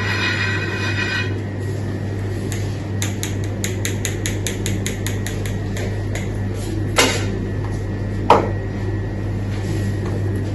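A blade clicks rapidly against a marble slab as chocolate spread on the stone is scored into strips, about five clicks a second, followed by two louder knocks. A steady low hum runs underneath, and background music ends about a second in.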